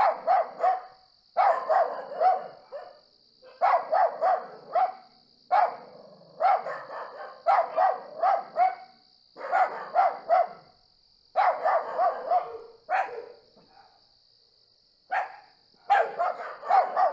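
A dog barking over and over in rapid bouts of four or five barks, with a short lull near the end, over the steady high trill of crickets.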